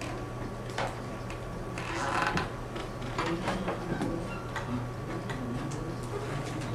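Computer mouse and keyboard clicking at irregular intervals, with a short scuffing sound about two seconds in, over a steady low electrical hum.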